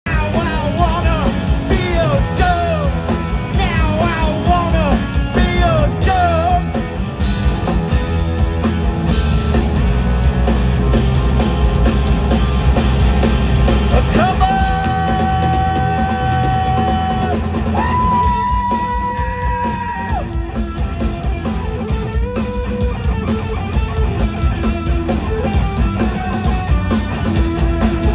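Live rock band playing loud: electric guitar through Marshall amplifiers, electric bass, drum kit and singing. Two long held notes come a little past halfway.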